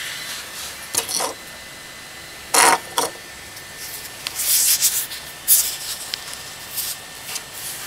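Handling noise: scattered short rubs and scrapes as a 3D-printed figurine is handled and set down, the loudest about two and a half seconds in.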